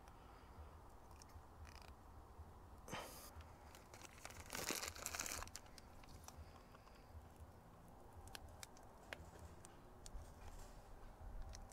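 Faint handling noises: rustling and crinkling, with a short rustle about three seconds in, a louder, longer one around five seconds, and scattered light clicks.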